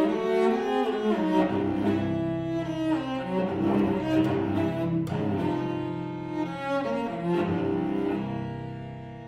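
A solo cello played with the bow, a melodic line moving above a low held note, growing quieter over the last few seconds.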